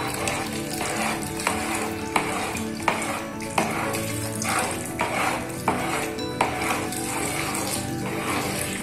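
A utensil stirring a pot of chicken corn soup as it thickens with cornflour, in even scraping strokes about three every two seconds, over background music.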